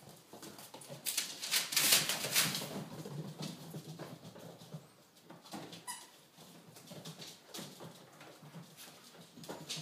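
Vizsla puppies and an adult dog scuffling in play, paws and claws pattering and scrabbling on a hardwood floor and rug. The scuffling is loudest in a burst about a second in.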